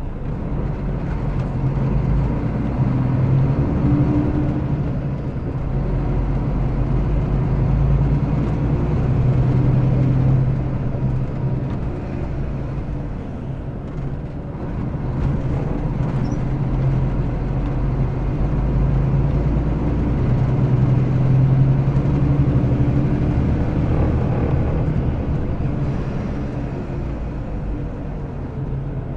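Diesel engine of a Mercedes-Benz O-500RS coach with a manual gearbox, heard from on board as it pulls away under load. The engine note swells and eases off a few times, with a dip about halfway through.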